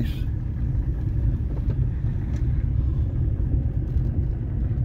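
Steady low rumble heard inside a car's cabin as it drives slowly along a gravel driveway, with engine and tyre noise.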